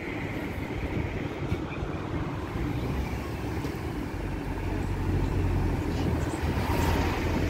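A car driving, heard from inside the cabin: a steady low rumble of road and engine noise that grows a little louder in the second half.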